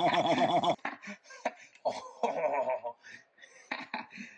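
A man laughing hard in broken bursts of giggles and snickers. Under a second in, the fast, rhythmic rattle of a cartoon jackhammer cuts off suddenly.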